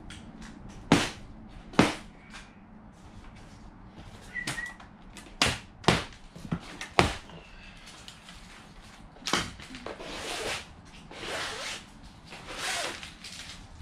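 Cardboard shipping box being opened by hand: about six sharp snaps and cracks over the first nine seconds, then longer rustling and scraping of cardboard and packing.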